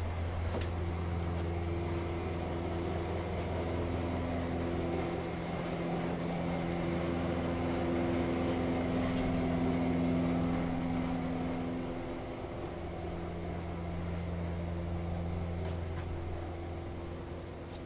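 Steady low machinery hum, like ventilation or air-conditioning fans running inside the submarine's steel hull, made of a low drone with several steady tones over it. The tones shift about two-thirds of the way through, and a few faint clicks come in the first seconds.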